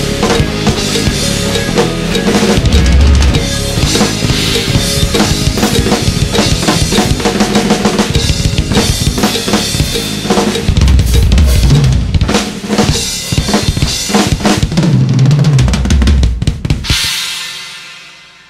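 Drum kit played hard along with the song's recorded backing track: dense kick-drum, snare and cymbal hits. The music stops about 17 seconds in and the cymbals ring out and fade.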